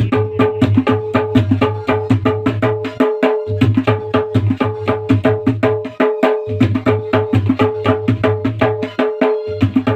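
Instrumental folk music: fast, steady tabla strokes over a held mid tone and a low bass line that pauses briefly about every three seconds.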